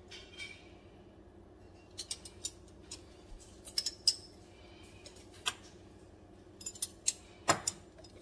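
Metal measuring spoons on a ring clinking and tapping against small glass spice jars: scattered light clicks in small clusters, the sharpest near the end, over a faint steady low hum.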